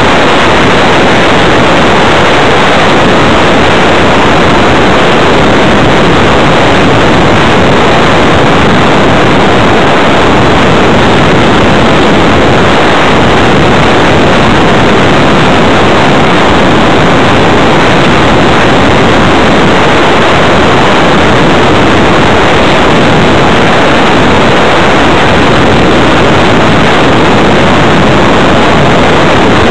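Loud, steady wind rush over the microphone of a small keychain camera mounted on an RC flying-wing model in flight, overloaded and without a clear motor tone.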